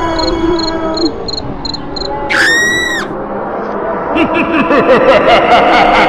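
Spooky Halloween sound-effects track. A faint high repeating ticking fades out over a held low tone, a single short high-pitched shriek comes about two and a half seconds in, and a dense run of rapidly wavering cries and high repeating strokes builds from about four seconds on.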